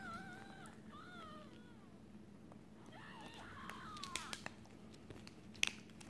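Small fluffy dog whining in high, wavering tones as it tugs and chews at a cloth doll, with a couple of sharp clicks in the second half.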